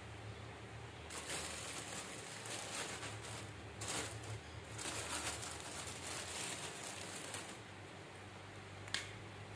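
Rustling and scraping of hands and a small knife cleaning palm-oil mushrooms, coming and going irregularly for several seconds, then a single sharp click near the end.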